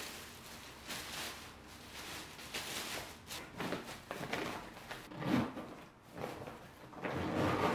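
Clear plastic garment covers and a reusable plastic tote bag rustling and crinkling in uneven bursts as clothes are packed into the bag.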